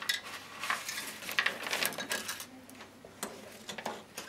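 A paper tissue being handled and crumpled: irregular rustling with small clicks.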